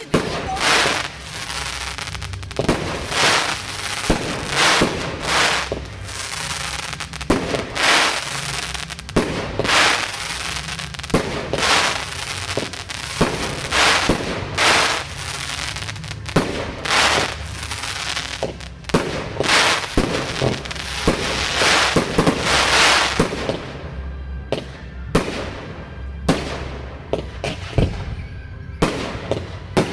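Fireworks display: shells bursting one after another, a sharp bang every second or two, with crackling and the rumble of the bursts in between.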